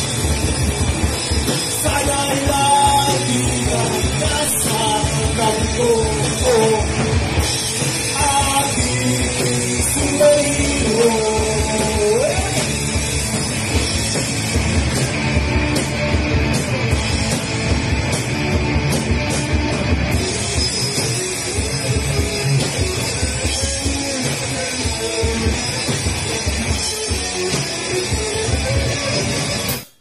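Rock band playing live: electric guitars over a drum kit, with singing.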